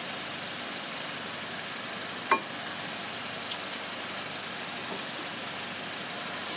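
A few light metal clicks from brake pads being handled and seated in a disc brake caliper bracket, the sharpest, with a brief ring, about two seconds in, over a steady background hum.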